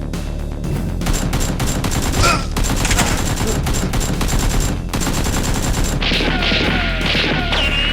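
Rapid gunfire sound effects, many shots in quick succession.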